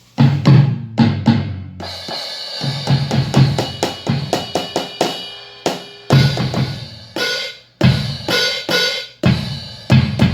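Xion ED04 digital drum station playing sampled drum-kit sounds (kick, snare and cymbals) in quick succession, starting suddenly just after the start, with short breaks about six and eight seconds in. The unit is producing sound again after its shorted internal power supply was repaired.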